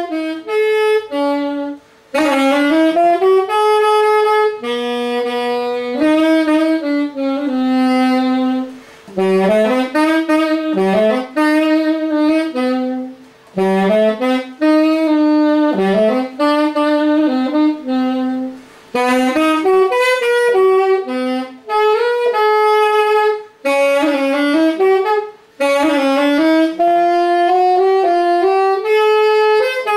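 Yamaha YAS-280 alto saxophone played solo: a melody of quick notes in short phrases, each broken off by a brief pause for breath.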